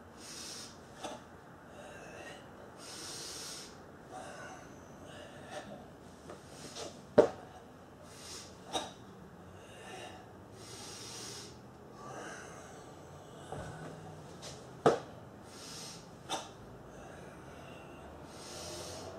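A kung fu practitioner doing Sam Chien "qi" breathing, with long, hissing breaths drawn in and let out between four short, sharp, loud exhales. This is forceful breathing through nose and mouth, set to the movements of the form.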